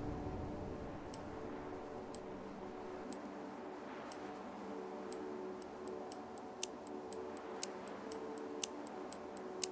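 Clock ticking, about one tick a second at first, with more and quicker ticks joining in from about halfway, over a faint sustained music drone.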